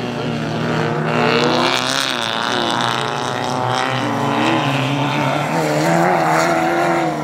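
Engines of several banger-racing cars revving hard as they race round a dirt track. Several engine notes overlap, each rising and falling with the throttle and gear changes as the cars pass.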